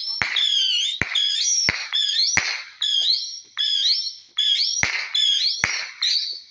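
Fireworks going off in quick succession: sharp bangs at irregular intervals, mostly under a second apart, with warbling high-pitched whistles between them.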